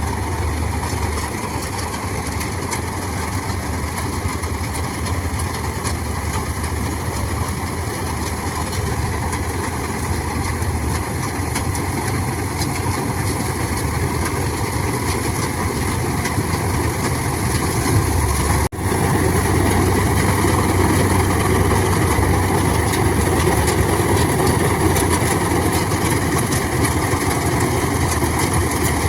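John Deere combine harvester's diesel engine running steadily. It cuts out for an instant about two-thirds of the way in, then runs on a little louder.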